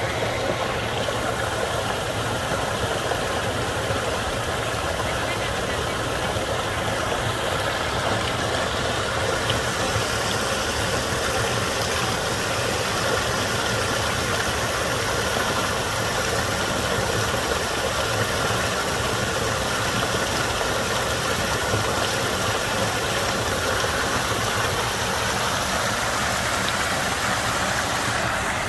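Steady rush of a garden waterfall, water falling continuously into a pond.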